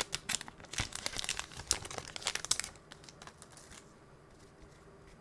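Foil wrapper of a hockey card pack crinkling as it is pulled open by hand: a dense run of sharp crackles that thins out and stops about three to four seconds in.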